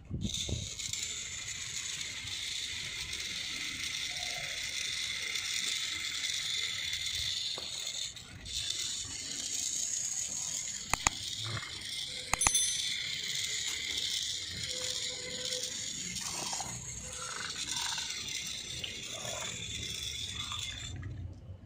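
Small solar-powered toy motor and plastic gearbox whirring steadily with a high-pitched whine as a kit-built wheeled robot drives itself, with a few sharp clicks around the middle.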